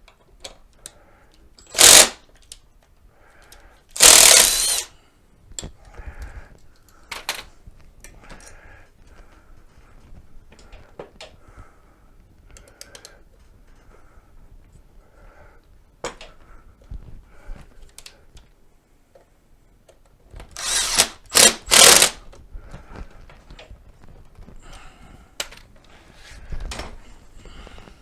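A power tool running in short bursts: three quick runs near the end, and under a second each earlier on. Small clicks and knocks of tools and parts being handled come between the runs.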